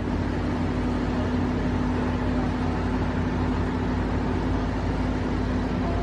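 Heavy diesel engine running steadily at a constant speed, an even drone with a steady low tone.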